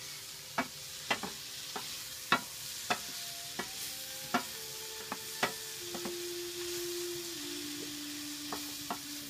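Chopped red onions sizzling in a stainless steel frying pan while a wooden spoon stirs them, knocking against the pan at irregular intervals, about one to two knocks a second.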